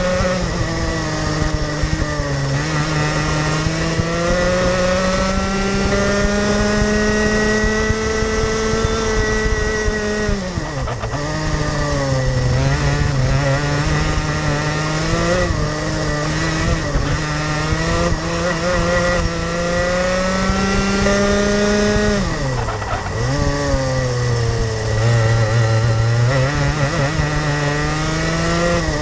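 Rotax Max Junior 125cc two-stroke kart engine at racing speed. Its note climbs steadily as the kart gathers speed down the straights, then drops sharply twice as the driver lifts off for corners, picking up again on the exit.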